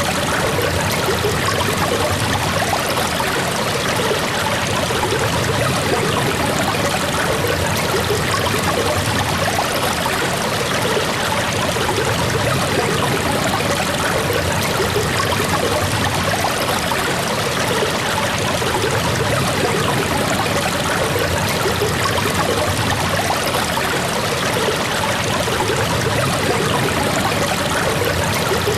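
Steady rain falling, a dense, even hiss of water that keeps up without a break.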